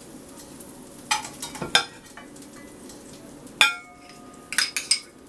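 Kitchen utensils clinking: a metal spatula knocking in a frying pan as lobster cakes are lifted out, then, about three and a half seconds in, a sharp clink that rings briefly, followed by a few light spoon taps against a small ceramic bowl.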